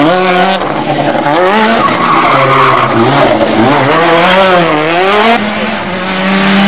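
Mitsubishi Lancer Evo 6's turbocharged four-cylinder engine at full race pace, its revs climbing and dropping several times through gear changes and lifts, then holding steady near the end, with tyres squealing around the middle.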